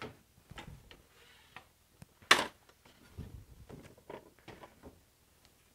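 Short knocks, taps and slides of a piece of wooden quarter-round molding being handled and set against the fence on a miter saw table, with one sharper knock about two seconds in.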